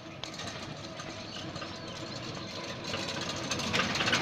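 Small engine of a three-wheeler auto-rickshaw running steadily, growing louder toward the end.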